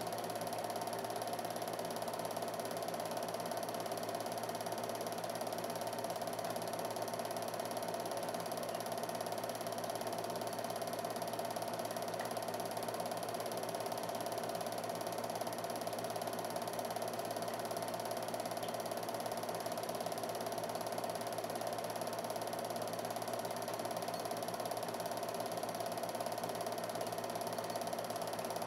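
Film projector running steadily: a continuous mechanical whir with a low hum under it that does not change.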